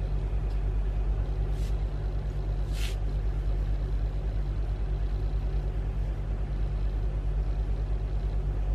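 A steady low mechanical hum with a fast, even throb, with two brief hisses about one and a half and three seconds in.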